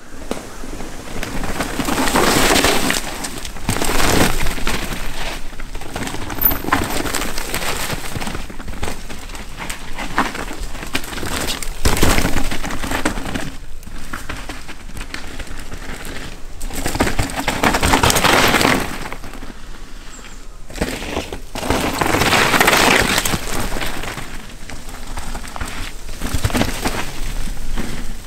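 A Revel Rail mountain bike ridden on a dirt singletrack, with tyres rolling over dirt and grass and the bike rattling and clicking. The sound swells about five times as the bike passes close by.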